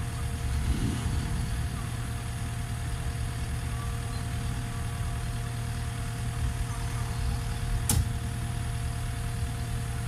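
Cat 236D skid steer loader's diesel engine running steadily, with one sharp knock about eight seconds in.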